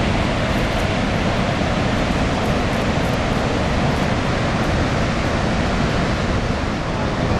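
Niagara Falls: the steady, loud rush of a huge volume of falling water, deepest in the low end.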